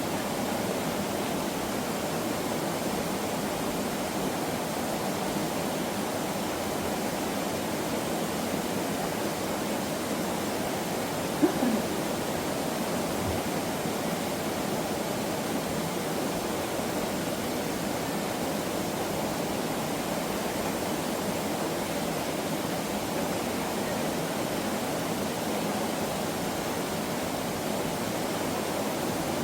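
Mountain valley stream water rushing steadily, with a single brief knock about eleven seconds in.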